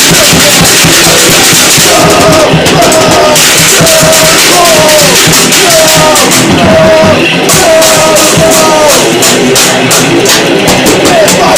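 Loud, distorted lo-fi garage noise-rock playing, with drum hits throughout and a short bending note repeating about every two-thirds of a second through the middle.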